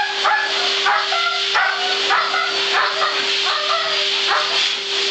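Siberian husky howling in a run of about eight short pitched calls, roughly one every half second, over the steady rushing hiss and hum of a grooming blow dryer.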